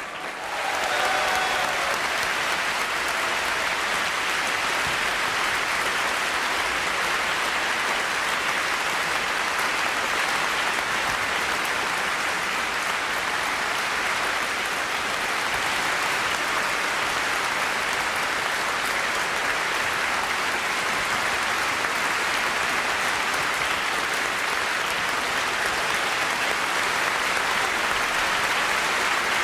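A large audience applauding, a long, steady ovation that swells to full strength about a second in.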